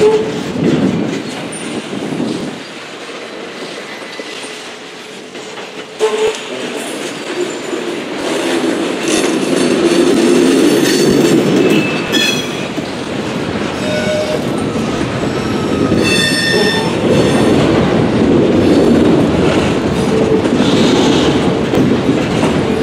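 Autorack freight cars rolling past, their steel wheels clicking over the rail joints in a steady rumbling rattle. The sound eases for a few seconds, then comes back louder after a sharp clank about six seconds in, and brief high-pitched tones ring out around the middle.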